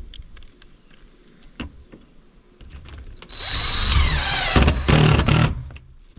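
Power drill driving a screw into the roof, running in two bursts of about a second each, its whine falling in pitch as it loads up. A few light knocks come before it.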